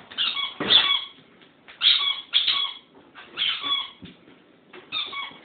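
A squeaky dog toy squeaked in short, high-pitched bursts, about six in quick clusters, as an Australian cattle dog plays with it. A knock sounds about a second in.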